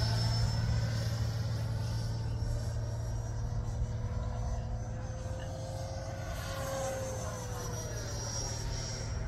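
Avanti V2 electric ducted-fan RC jet whining in flight. Its pitch creeps up as it closes in, then drops about seven seconds in as it passes by. A steady low drone runs underneath.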